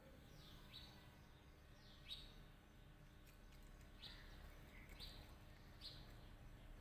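Faint bird chirps: about five short, high calls at uneven intervals over quiet outdoor background noise.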